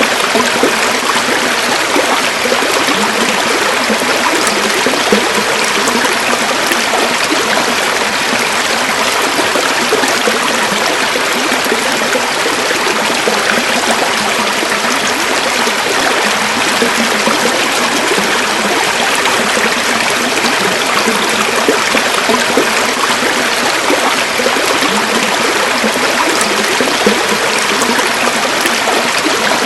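River water flowing steadily over rocks, a continuous rushing and babbling that stays even throughout.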